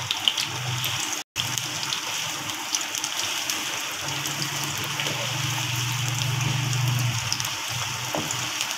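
Sliced onions sizzling and crackling in hot oil, stirred with a wooden spatula. A low hum comes in about four seconds in and fades out about three seconds later.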